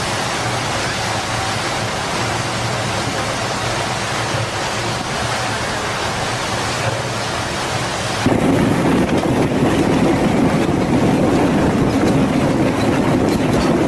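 Storm noise: a steady rush of heavy rain and wind. It gets louder and heavier about eight seconds in.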